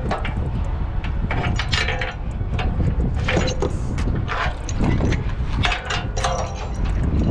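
Strong wind buffeting the microphone with a steady low rumble, over a run of metallic clicks, clanks and rattles.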